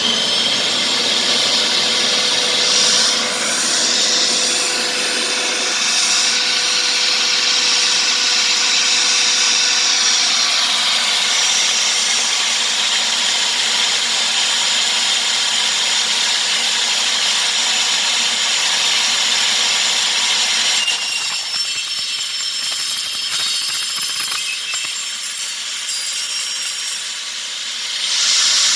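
Table saw running, its blade cutting a wooden blank into a round dowel in a jig: a loud, steady sawing noise with a high-pitched edge. About three-quarters of the way through the sound changes and gets a little quieter.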